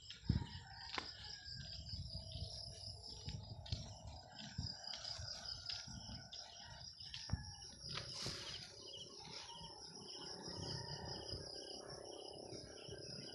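Insects chirring in a steady high buzz, with a second, slower pulsing chirp joining about two-thirds of the way through, over a low rumble of wind or handling on the microphone.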